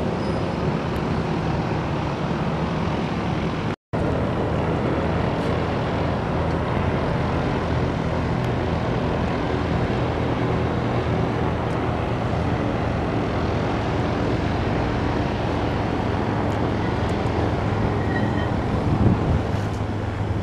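Single-engine Piper PA-28 Warrior's four-cylinder piston engine running steadily as the plane flies by, heard from the ground under a steady rush of wind noise. The sound cuts out completely for a moment about four seconds in.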